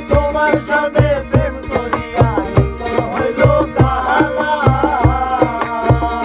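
Group performance of a Bangla baul folk song: a ukulele strummed under voices singing the melody, with a cajón beating a steady low thump about two or three times a second.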